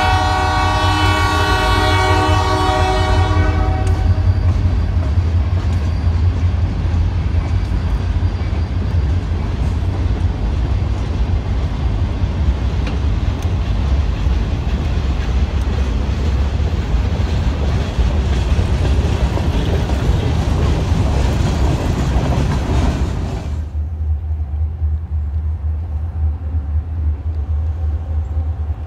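Freight train cars rolling past close by: a steady rumble and rattle of steel wheels on the rails, with a sustained many-pitched ringing tone over the first four seconds that fades out. About 23 seconds in the train sound cuts off sharply, leaving a quieter steady low hum.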